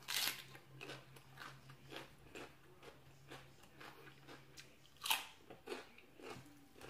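A crisp bite into a raw fresh vegetable, followed by crunchy chewing at about two or three crunches a second, with a second loud crunchy bite about five seconds in.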